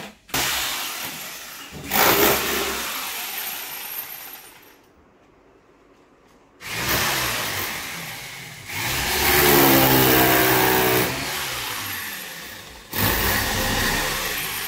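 A power tool's motor running in loud bursts of a few seconds, with a rushing, hissy noise. It stops for about two seconds partway through, and when it starts again its pitch climbs as it speeds up.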